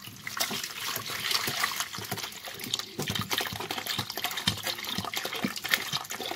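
Water streaming from a hose into a plastic basin, splashing steadily as the basin fills.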